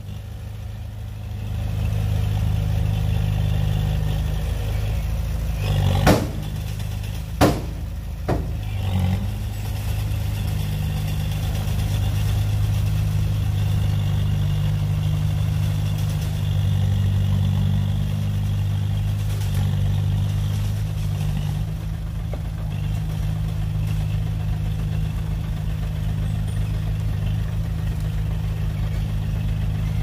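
Heavy diesel engine of earthmoving machinery running steadily, picking up about a second and a half in, with three sharp knocks between about six and eight seconds in.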